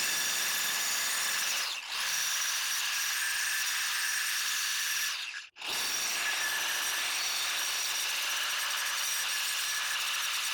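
Angle grinder running against the steel of an anvil, dressing its edges and grinding off paint: a steady whine with a grinding hiss. It dips briefly about two seconds in and breaks off for a moment a little past halfway, then runs on.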